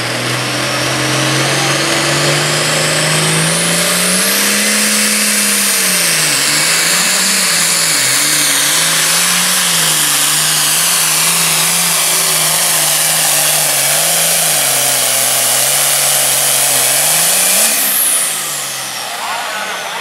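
Super Farm class diesel pulling tractor under full load on a pull. The engine revs up over the first few seconds, its pitch wavering up and down as it pulls, with a high whine rising and falling alongside. It eases off near the end.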